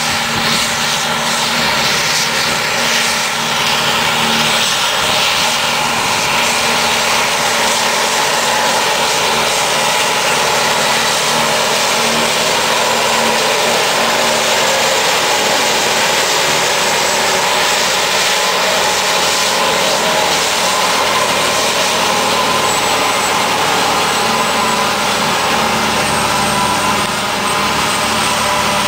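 New Holland Articulée 2025 self-propelled forage harvester picking up a grass windrow and chopping it for silage. Its engine and chopping gear run steadily under load with a high whine as it drives past.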